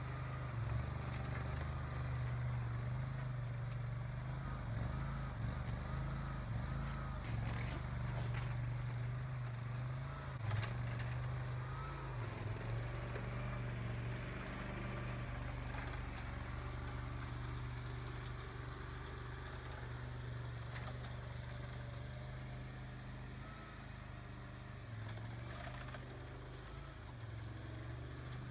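Boxer 427 mini skid steer running steadily. Its engine note wavers and dips briefly several times in the first dozen seconds as it works, with a few light knocks over the steady hum.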